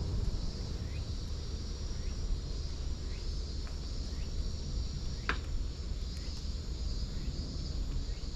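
A steady chorus of insects buzzing in a high band over a low rumble, with faint short rising chirps about once a second. One sharp click sounds about five seconds in.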